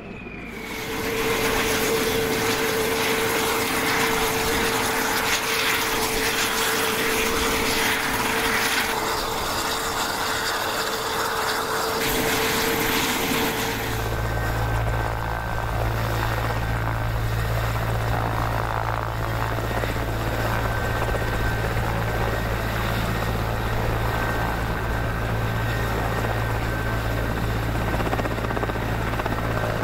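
Helicopter running, its turbine engines and rotor making a loud, steady noise. A steady whine runs over it until about halfway, when it gives way to a deep, steady low drone.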